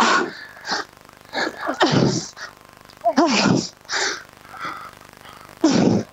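A person's heavy breaths and grunts of effort: a series of short, breathy gasps from a rider straining to free herself and her motorcycle from deep, sucking mud.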